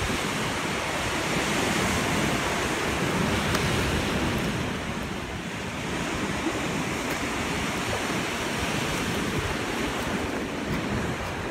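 Ocean surf washing and breaking against a lava shoreline in a steady rush, with wind buffeting the microphone.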